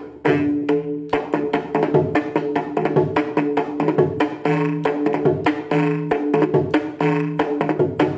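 Mridangam playing a fast, dense run of strokes, with some ringing strokes on the right head that sustain one clear pitch between sharper dry strokes.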